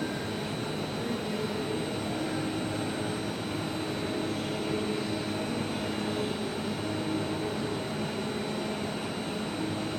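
Digital flatbed cutting machine running for KT board cutting: a steady mechanical whirr with a constant high whine over it.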